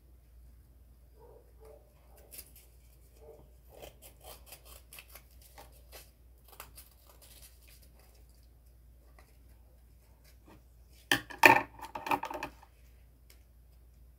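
Cardboard model pieces being handled: light scratching and tapping, then a louder cluster of scraping and knocks about eleven seconds in.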